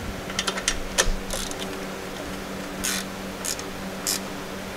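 Short metallic clicks and brief scrapes from a hand tool working the mounting bolt of a horn bracket, over a steady low hum.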